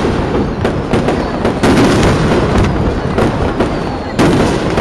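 Aerial fireworks shells bursting in quick succession: many sharp bangs over a continuous rumble and crackle, with louder bursts about a second and a half in and again near the end.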